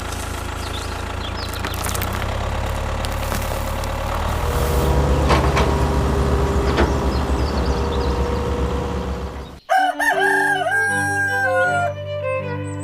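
A steady low motor drone with a few clicks and faint bird chirps, cutting off suddenly about ten seconds in; a rooster then crows, one long wavering call, over string music.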